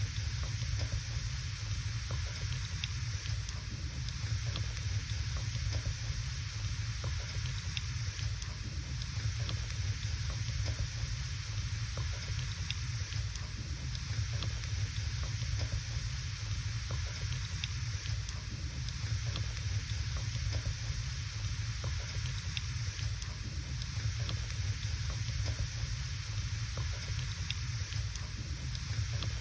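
Wood fire burning in a fireplace: a steady hiss with small crackles and pops scattered irregularly throughout.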